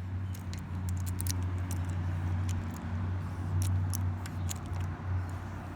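Scattered light clicks and taps from hands working on a bicycle's hydraulic disc brake caliper, over a steady low hum.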